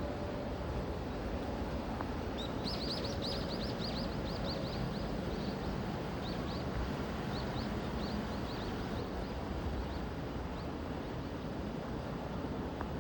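Steady outdoor wind noise, with a bird giving a rapid series of short, high chirps starting a couple of seconds in; the chirps thin out and fade over the next several seconds.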